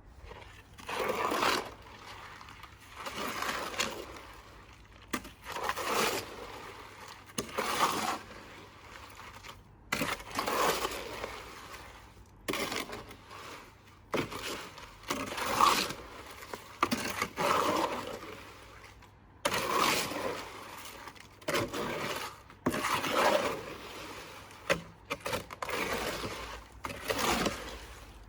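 Shovel scraping and turning through a wet, sloppy cement mix in repeated strokes, about one every one to two seconds.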